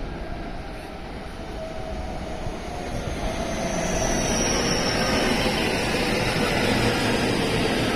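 A JR West 223 series and 225 series electric train pulling into the station, its running noise growing louder from about three seconds in. Several whining tones slowly fall in pitch as it slows to a stop.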